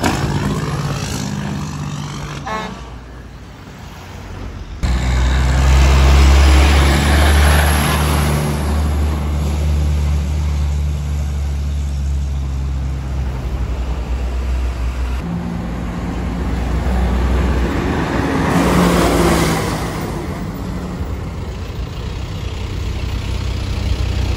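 Heavy diesel trucks running and pulling along the road, in separate clips with two abrupt changes: a dump truck, then a fuel tanker tractor-trailer whose low, steady engine note is the loudest part, then trucks in town traffic.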